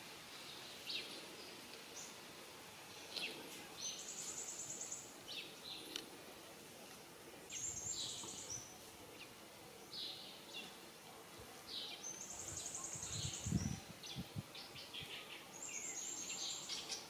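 Wild birds calling: short high chirps and a rapid high trill repeated every few seconds, over a steady outdoor background hiss. A few low thumps about two-thirds of the way through.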